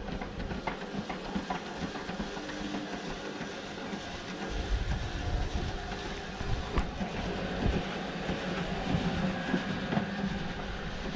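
Roller garage door rolling down and closing, a steady rattling clatter of its slats with a low hum.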